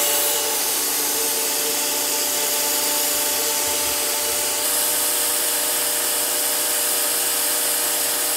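Active VE52 electric pressure washer running steadily under load. The motor and pump hum at a steady pitch over the hiss of a 40-degree 4.0 nozzle spraying at about 1,025 PSI into a bucket for a timed flow test.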